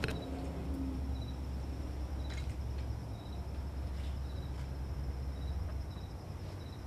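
Insects chirping in the open air: a steady high trill with short higher chirps repeating every half second or so, over a low steady rumble. A single click sounds at the very start.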